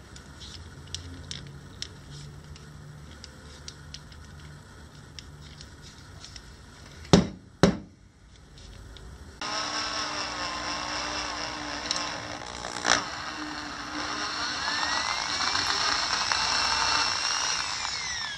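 Small handling clicks, then two sharp knocks about seven seconds in. From about nine seconds an electric drill runs, boring into a wooden knife-handle blank clamped in a bench vise, its whine wavering and rising then falling in pitch before it stops near the end.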